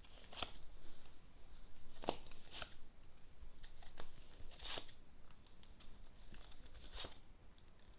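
Tarot cards being handled and laid out: a handful of soft rustles and light taps, spaced a second or two apart.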